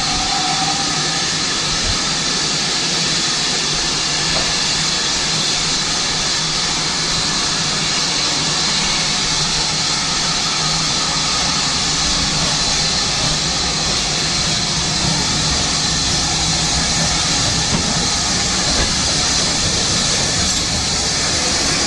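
Steady loud hiss of steam from a steam auto train's locomotive as the train moves slowly along the platform, with the tail of a steam whistle fading in the first second.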